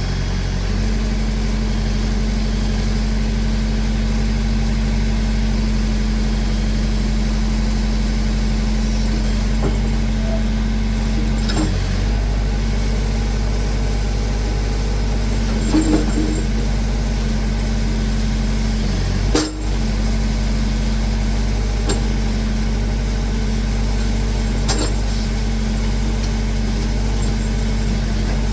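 Massey Ferguson backhoe's engine running steadily while the machine works. It sags briefly under load twice, and there are a few clanks from the machine.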